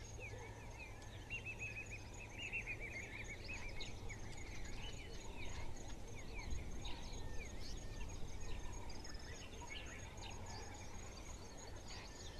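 Faint bush ambience: several birds chirping and whistling in short calls, over a steady high pulsing insect trill and a low rumble.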